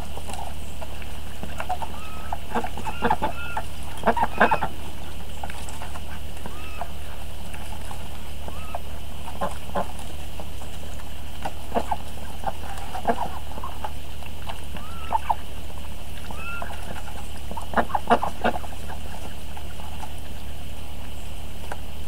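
Ducks calling now and then in short soft calls while they feed and drink. There are a few quicker runs of louder calls about four seconds in and again near the end.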